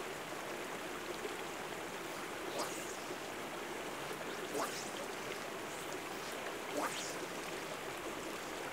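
A fly line swishing through the air three times as a fly rod is false-cast, over a steady rushing background noise.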